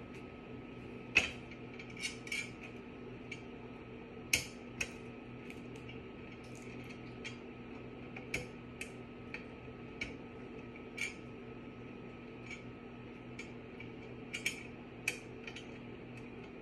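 Small, irregular metallic clicks and clinks of a hex key turning screws tight into a laundry hamper's metal frame, the sharpest about a second in and about four seconds in.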